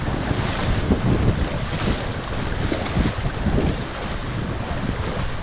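Shallow river water rushing over stones, heard as a steady wash, with irregular gusts of wind buffeting the microphone.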